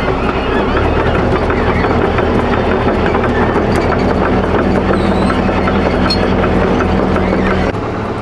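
Tracked excavator running and travelling: a steady engine drone under the rattling clank of its steel tracks. It eases off slightly near the end.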